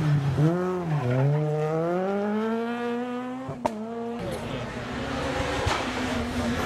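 Rally car engine accelerating hard, its note climbing steadily, with one sharp crack about three and a half seconds in, after which the engine note breaks off into a noisy rush of tyres and exhaust.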